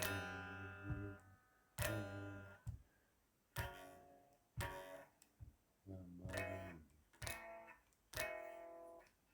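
Chords strummed on a guitar, struck about seven times at uneven gaps of one to two seconds, each left to ring out and fade.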